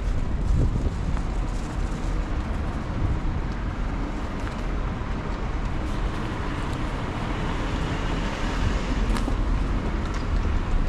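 City street ambience: steady traffic noise with a low rumble, growing slightly fuller in the second half, and one short click about nine seconds in.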